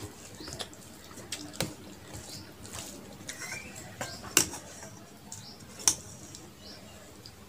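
A person eating rice and chicken curry by hand close to the microphone: wet chewing and lip-smacking clicks, with sharper clicks about one and a half, four and a half, and six seconds in.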